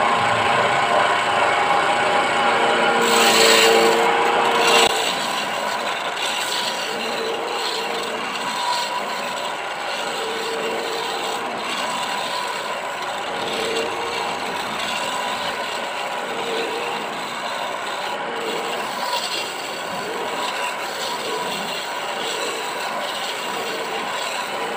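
Steel turning chisel cutting into a teak blank spinning on a wood lathe: a continuous scraping, shaving noise over the hum of the lathe's electric motor. It is loudest in the first few seconds, with a harsh burst of cutting about three to four seconds in, then goes on as lighter, repeated cutting passes.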